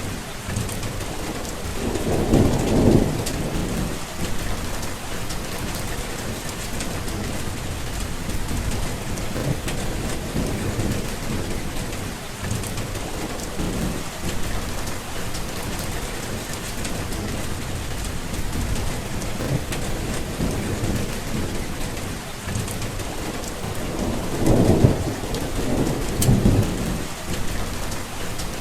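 Steady rain falling, with thunder rumbling low twice: about two seconds in and again near the end.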